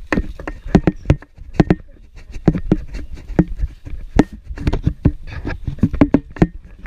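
Irregular knocks and thuds, several a second, over a low rumble: handling noise from a handheld camera being carried while walking.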